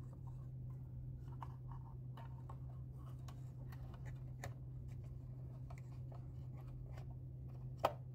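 Light, irregular clicks and taps of hands fitting parts into a wooden cuckoo clock case, with one sharper knock near the end, over a steady low hum.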